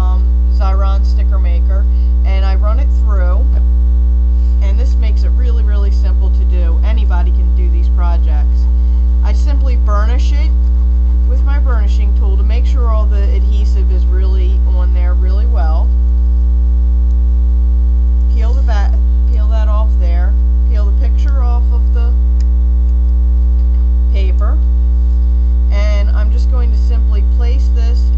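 Loud, steady electrical mains hum with a ladder of overtones, a hum fault in the recording itself that drowns out the quiet handwork.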